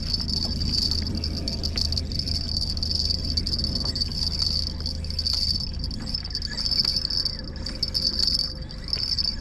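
Insect chorus: a steady, high-pitched trilling buzz that swells and fades slightly, with a low rumble underneath.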